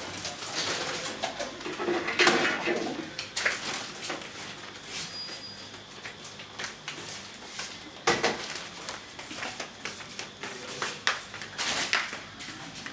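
Irregular knocks, bumps and rustling of household belongings being picked up and carried out of a small room, with a sharper bang about 8 seconds in.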